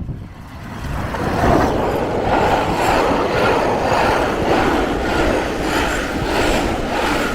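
Model train running along layout track, a steady running noise with a faint, even repeat.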